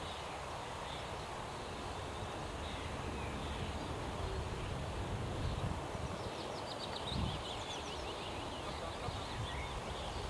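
Steady outdoor background noise with a low rumble, and small birds chirping in quick high runs in the trees, clearest about two-thirds of the way through. A low bump sounds about seven seconds in.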